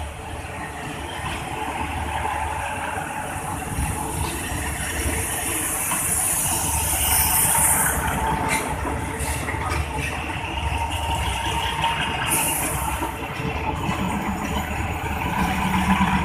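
State Railway of Thailand diesel railcar train pulling out and rolling past, its engines running with a steady low rumble and the wheels rattling over the rails, growing slowly louder. High hissing comes in twice, about five seconds in and again about twelve seconds in.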